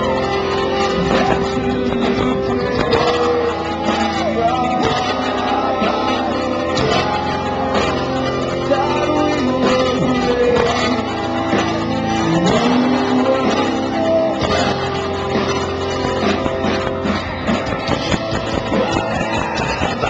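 Live rock band playing electric guitars and drums with singing, heard from the crowd.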